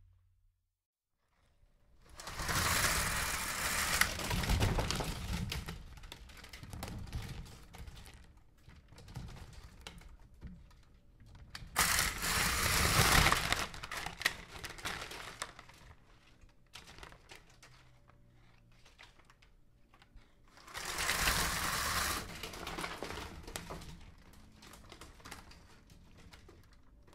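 Window blinds being pulled up, the slats and cord mechanism rattling and clattering in three longer pulls with quieter rattling between them.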